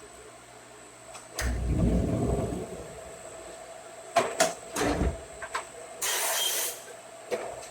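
Workshop handling sounds: a click and a low rumble lasting about a second, then a few sharp metal knocks and clunks, and a brief burst of hiss about six seconds in, over a faint steady machine hum.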